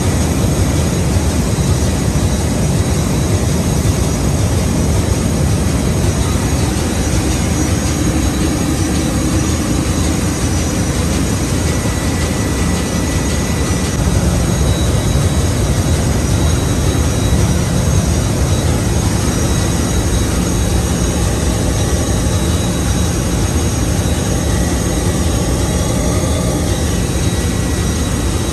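Loud, steady machinery drone of a ship's engine room, with faint steady whining tones above it.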